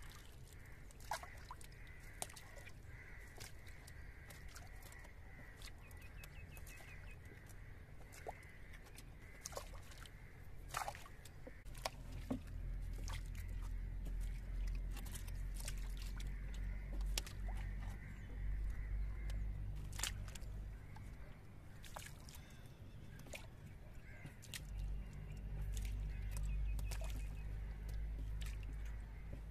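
Freshly caught tilapia flapping against the wet bottom of a wooden canoe: scattered sharp clicks, taps and slaps. A faint steady high tone runs through the first ten seconds or so, and a low rumble comes in about twelve seconds in.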